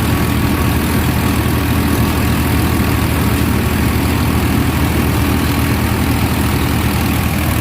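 Tractor engine running steadily at an even pitch, powering a Gill tractor-mounted combine harvester.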